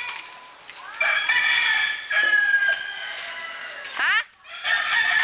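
Roosters crowing: several long, high calls overlapping, with a short break about four seconds in.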